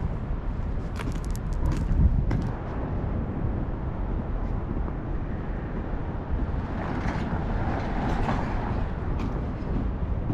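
Steady low rumbling outdoor noise, with a few sharp clicks between about one and two and a half seconds in.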